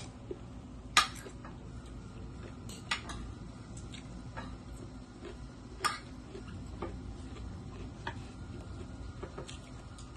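Metal spoons clinking against plates and dishes in a few scattered sharp clicks. The loudest comes about a second in, with more near three and six seconds.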